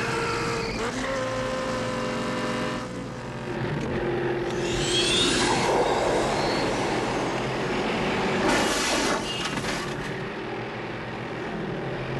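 Film car-chase soundtrack: a V8 car engine running hard at speed, its pitch shifting, with a rising high whine about four to six seconds in and a burst of noise at around eight and a half seconds.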